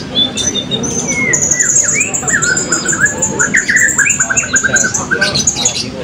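Several caged blue-crowned hanging parrots calling over one another: a high, thin, rapid trill held for a few seconds, with quick rising chirps and fast runs of short notes beneath it.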